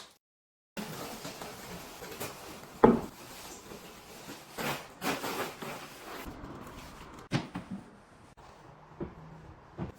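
Household items being handled and set down: a loud knock about three seconds in, short rustling, scraping bursts around five seconds, and a few sharper knocks later.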